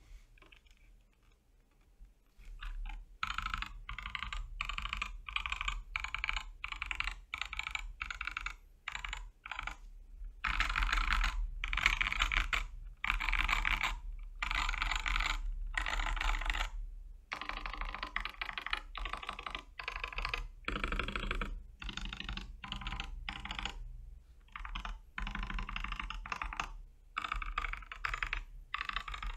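Keychron K4 mechanical keyboard, modded with lubed Boba U4T tactile switches and PCB and case foam, being typed on in quick runs of keystrokes with short pauses. The typing starts about two seconds in.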